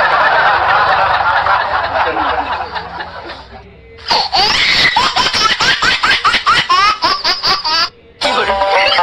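Canned laughter sound effects: a dense laugh of many voices that fades out over the first four seconds. After a short break comes a fast, rhythmic laugh of quick rising cackles lasting about four seconds, and music starts near the end.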